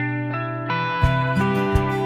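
Background music: held guitar-like notes, with a steady beat coming in about a second in.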